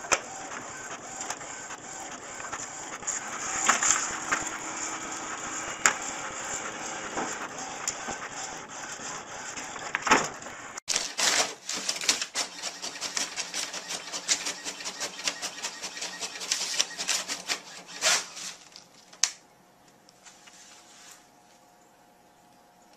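Desktop printers running. The first whirs steadily with scattered clicks. After a sudden change about eleven seconds in, a second printer feeds paper with rapid, irregular clicking, which stops about four seconds before the end, leaving only a faint hum.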